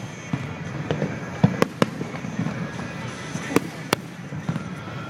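Fireworks bursting: a quick run of three sharp bangs about a second and a half in and two more around three and a half to four seconds in, over a continuous rumble and crackle of other shells.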